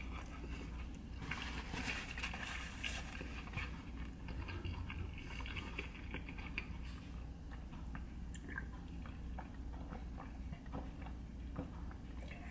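A man chewing a mouthful of burrito close to the microphone: soft, irregular mouth clicks and smacks.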